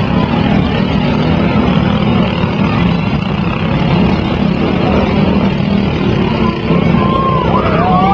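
Riding lawn mower engines running together, a loud steady mechanical din with overlapping engine notes.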